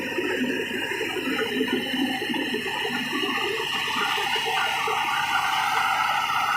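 Komatsu D70LE bulldozer running: a steady mechanical noise with a continuous rattling clatter.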